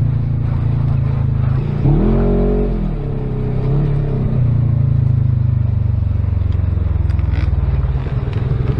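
Side-by-side UTV engine running steadily, heard from inside the cab, revving up and back down about two seconds in and again about four seconds in.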